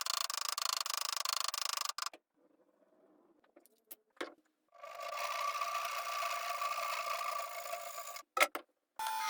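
A small electric power tool running steadily in three short stretches, broken by abrupt cuts, with a sharp click about a second before the last stretch.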